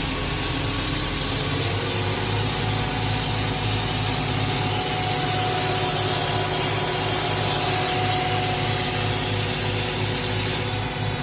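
Tractor engine running steadily while its hydraulics fold the arms of a twin dribble bar down. The engine note shifts slightly about a second and a half in, then holds steady.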